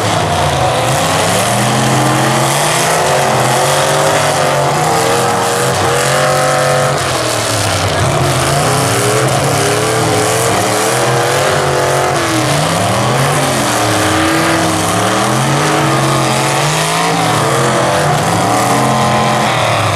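Several demolition derby cars' engines revving up and down at once, their pitches rising and falling over and across each other as the full-size cars push and ram in the arena. A steady crowd din runs underneath.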